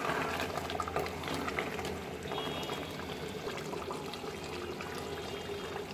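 Beef curry gravy simmering in a pot, a steady mass of small bubbling pops with a faint low hum underneath.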